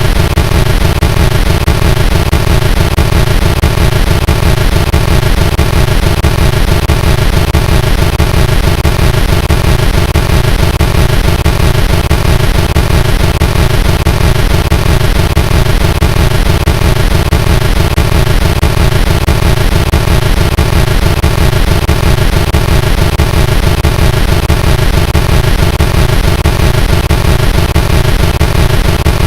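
A sound clip run through stacked distortion effects into a constant wall of harsh, clipped noise, very loud throughout, with a rapid low flutter underneath.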